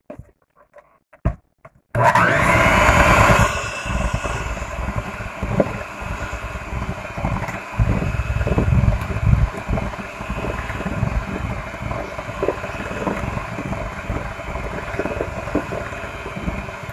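Electric hand mixer switching on about two seconds in and running steadily, its twin beaters mixing cake flour into a thick batter in a glass bowl. It is louder for the first second or so, then settles, with irregular knocks of the beaters against the bowl throughout; a few light clicks come before it starts.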